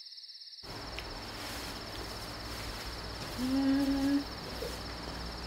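Steady high chirring of crickets over quiet room tone, with a person's short hummed "mm", under a second long, about three and a half seconds in.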